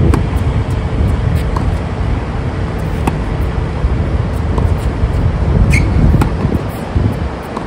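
Tennis rally: sharp pops of the ball being struck, about every second and a half, over a heavy rumble of wind on the microphone.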